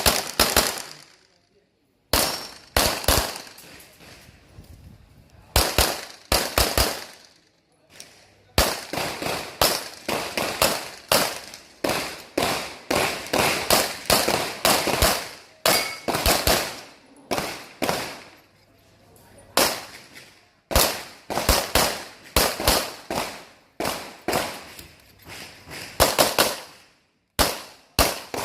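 Handgun shots fired in rapid strings, often in quick pairs, each with a short echo. Brief pauses of a second or two between strings mark reloads or movement between target arrays during an IPSC course of fire.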